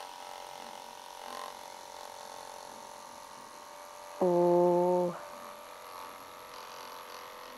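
Liveryman electric horse clippers running with a steady hum as their blades run through a pony's winter coat. About four seconds in, a louder and lower steady buzz comes in for about a second.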